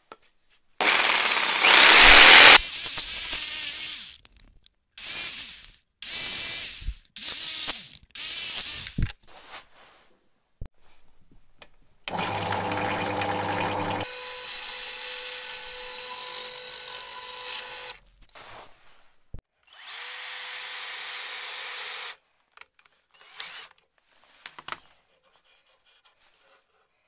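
Power tools cutting and drilling wood: a jigsaw cuts plywood in one loud stretch of about three seconds, then in four short bursts. Later a bench drill press runs with a steady whine for about six seconds while drilling, then runs once more for about two seconds.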